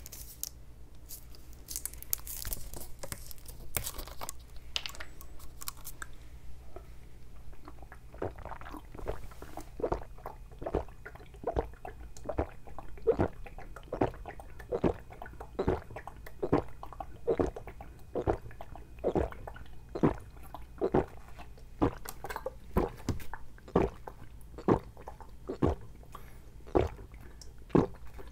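A person gulping down a drink from a 900 ml plastic bottle in one long chug: loud swallows, a little more than one a second, steady for some twenty seconds. Before the drinking starts, a few seconds of crackling from the plastic bottle being handled.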